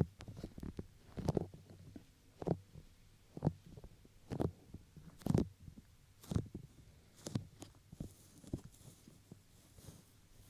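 Bare hands touching and patting the ears of a binaural microphone up close, giving soft, muffled thuds about once a second over a low rumble.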